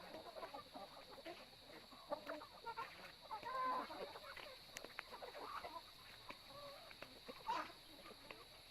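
Chickens clucking and chattering in short, scattered calls as they feed, with a louder call about three and a half seconds in.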